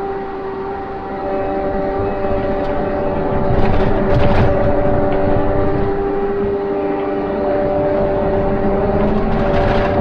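Vehicle engine running at a steady speed under a rumbling noise, getting louder a couple of seconds in, with short rattles around the loudest part.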